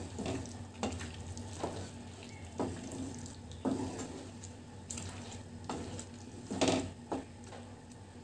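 Wooden spatula stirring thick, creamy paneer butter masala gravy in a non-stick frying pan. Each stroke gives a short wet scrape and squelch, about one a second, over a steady low hum.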